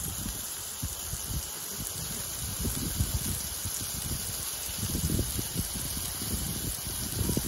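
Beef burger patties sizzling in oil on a stainless steel flat-top barbecue plate, a steady hiss, with irregular low thumps underneath.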